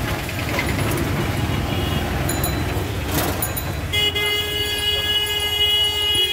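Auto-rickshaw engine and street traffic running under a steady rumble. About four seconds in, a vehicle horn sounds one long, steady blast of a little over two seconds and then cuts off.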